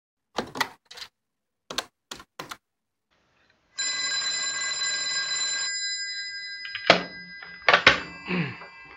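A few short knocks, then an old black desk telephone's bell rings once for about two seconds. Near the end the handset is snatched up with a clatter of knocks.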